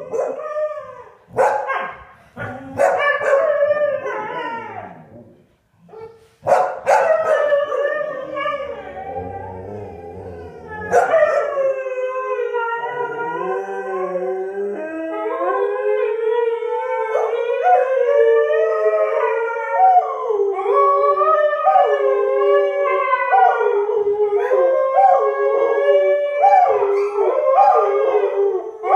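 A Siberian husky howling, set off by an English springer spaniel pestering it, with two English springer spaniels howling along. Shorter, broken calls in the first few seconds give way, from about eleven seconds in, to a continuous chorus of several overlapping howls rising and falling in pitch.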